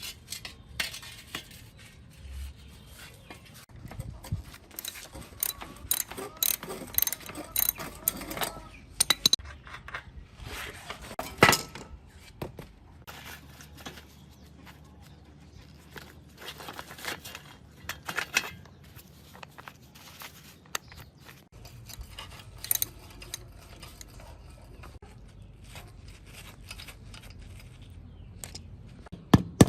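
Irregular metallic clicks, clinks and scrapes of tools and parts being handled while working on a rusty bicycle, with one louder clank about halfway through.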